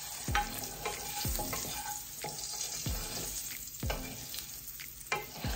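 Diced salt pork sizzling in hot grease in a skillet as it is stirred with a wooden spoon, with several short, sharp clicks through the steady frying hiss.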